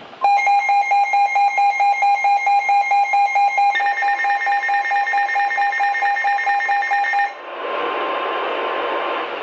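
Weather alert radio receiver's alarm beeping rapidly and loudly, its tone shifting slightly partway through; it cuts off near the end, leaving radio hiss.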